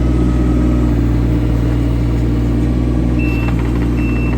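The John Deere 17ZTS mini excavator's small Isuzu diesel engine running steadily. Short high-pitched beeps start about three seconds in, repeating less than a second apart.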